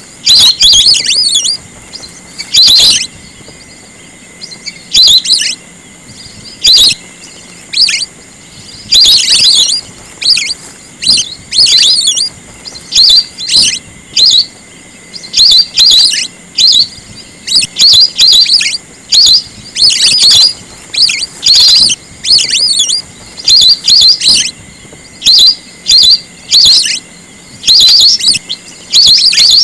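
Whistling ducks calling: loud, shrill, high whistled calls in short clusters, one after another with brief gaps, over a faint steady high tone.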